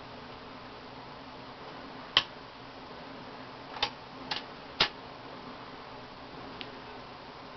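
Steady low hiss and hum broken by sharp, irregular clicks: a loud one about two seconds in, three more close together about a second and a half later, and a faint one near the end.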